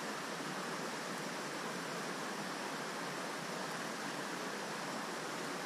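Steady rush of a mountain stream's flowing water, an even noise with no distinct events.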